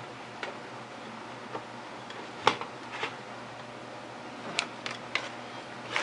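Scattered clicks and knocks as the Macintosh SE/30 logic board is handled and fitted into the computer's chassis. The sharpest click comes about two and a half seconds in, and a quick run of smaller clicks follows near the end.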